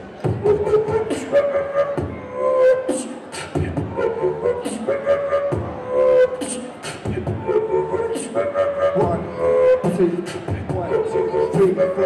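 Beatboxing into microphones: rapid vocal clicks, hits and snare sounds, with a held, hummed or sung pitched line over the rhythm.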